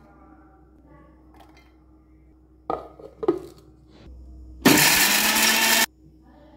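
Two knocks as the steel jar and its lid are handled, then an electric mixer grinder runs loudly for just over a second, grinding onions, garlic and red chillies to a paste, and cuts off suddenly.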